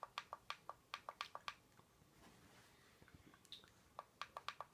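Volume-up button pressed over and over: a quick run of faint clicks, about six a second, then a pause and another run of clicks near the end.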